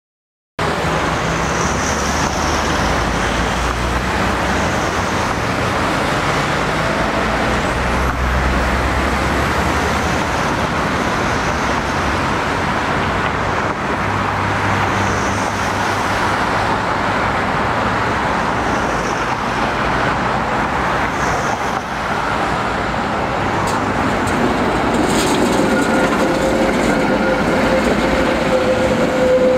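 Tram running in street traffic, a steady rumble of rolling wheels and road noise. From about 25 s in, a steady high squeal joins in, typical of tram wheels on curved rail.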